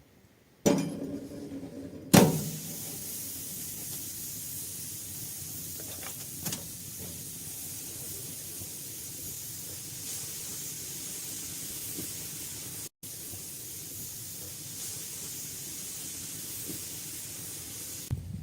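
A sudden thump and then a sharp knock in the first two seconds, followed by a steady hiss that runs on, cut off for an instant partway through.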